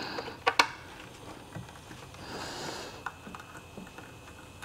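Handling noises from connecting speaker wire to the back of an in-wall speaker: a pair of sharp clicks about half a second in, then soft rustling and a few faint ticks.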